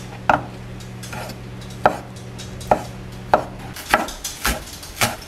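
Kitchen knife cutting on a wooden cutting board: slow single strokes through fish cake sheets, then quicker chopping of green onion from about four seconds in. A low steady hum underneath stops abruptly just before the faster chopping.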